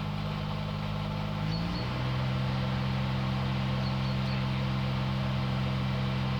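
Zanotti truck refrigeration unit's engine running steadily, then changing speed about a second and a half in and settling at its lower city RPM setting after the high-low button is pressed.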